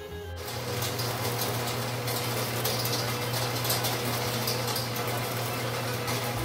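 Horizontal metal-cutting bandsaw cutting through a block of aluminum: a steady motor hum under the continuous noise of the blade in the cut, starting abruptly a moment in.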